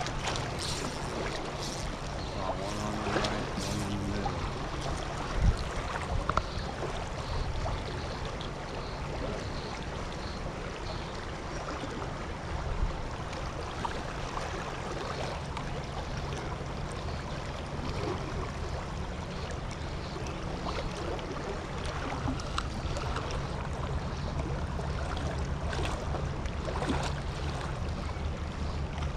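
Shallow, rocky creek riffle flowing, a steady rush of water, with one sharp click about five seconds in.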